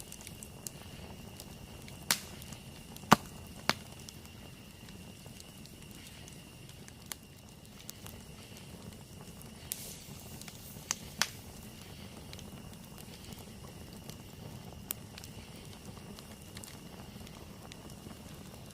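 Wood campfire burning with a low steady rush and scattered sharp crackles and pops, the loudest about three seconds in. A faint steady high tone sits behind it.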